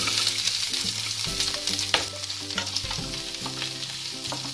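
Chopped onions sizzling as they drop into hot oil in a kadhai, the hiss starting at once, while a wooden spatula stirring them scrapes and clicks against the pan, with one sharper knock about two seconds in.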